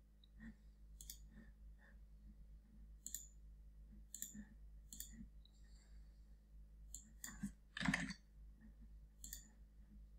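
Faint computer mouse button clicks, about eight of them scattered over several seconds, with one louder, longer knock about eight seconds in, over a low steady hum.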